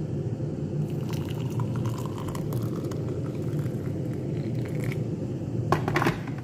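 Hot water poured from a kettle into a mug with a tea bag and spoon in it, over a steady low rumble. A few sharp knocks near the end.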